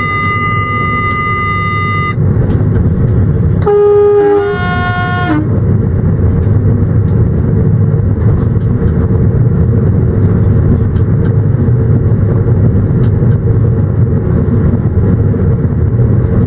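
Train running, heard from the locomotive cab: a steady high-pitched tone sounds until about 2 s in, then the horn gives one short blast about four seconds in, a lower note moving straight into a higher one. Under it runs the steady loud rumble of the moving locomotive, with a few faint clicks.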